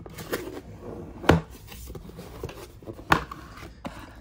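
Small cardboard box being opened and handled by hand: a few sharp knocks and scrapes of cardboard with rubbing between, the loudest knock about a second in and another about three seconds in.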